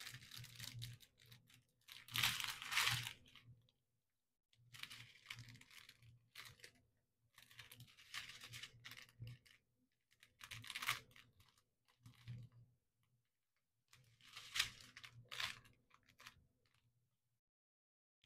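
Small clear plastic bags of diamond painting drills crinkling as they are handled, in about seven bursts with short pauses between.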